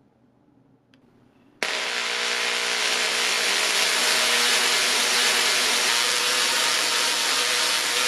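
Near silence with a faint click, then about a second and a half in a Tesla coil's sparks start suddenly and keep up a loud, steady buzzing hiss.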